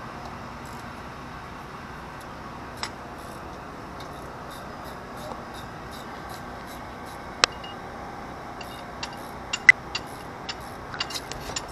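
Occasional sharp metallic clicks and clinks of hand tools and engine parts as a mechanic works in a car's engine bay, over a steady background hiss. The clicks are sparse at first and come more often in the second half; the engine is not running.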